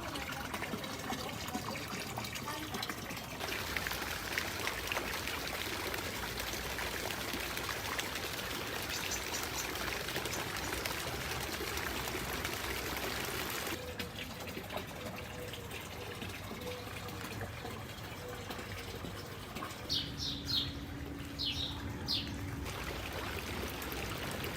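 Fountain water trickling and splashing steadily, the sound changing abruptly twice. Birds chirp briefly, faintly about nine seconds in and in a quick run of short falling chirps about twenty seconds in.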